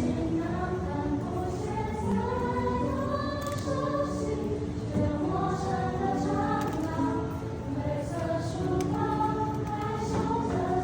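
Choral singing: several voices holding sustained notes together, moving from chord to chord about once a second.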